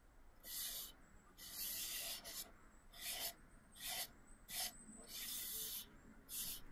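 Fine, high-grit sandpaper rubbed by hand along a stained wooden chair part, about seven short, uneven strokes, taking off excess wax filler from the holes and cracks.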